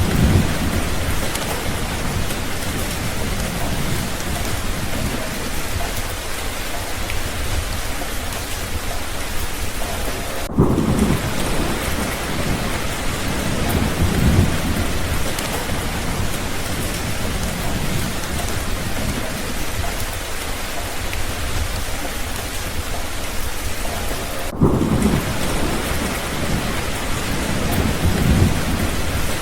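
Steady rain falling, with low rolls of thunder rumbling in and out several times.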